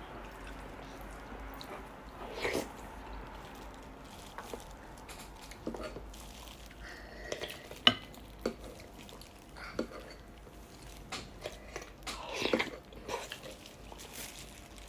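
Eating sinigang soup: quiet chewing and sipping of broth, broken by scattered clinks of a spoon against a bowl. The loudest is a sharp clink about eight seconds in.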